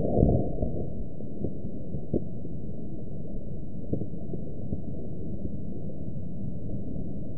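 Homemade sodium chlorate and sugar rocket motor rushing as it launches, dying away within the first half-second. After that a steady dull noise with a few faint ticks.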